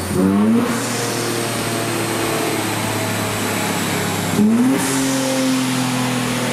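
2023 Nissan Z's twin-turbo VR30 V6 running on a dyno. The revs climb briefly at the start and again about four seconds in, each time settling to a steady pitch.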